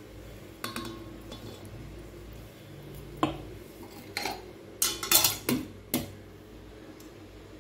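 A steel ladle clinking and knocking against a stainless steel mixing bowl, a scattering of sharp metallic clinks with the loudest cluster about five seconds in, as jaggery syrup is poured into rice flour and stirred.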